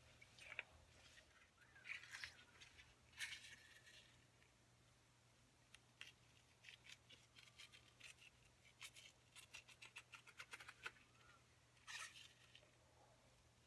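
Faint rustling and scraping of rubber-gloved hands turning wet wool yarn in a stainless steel pan, with a quick run of light clicks past the middle.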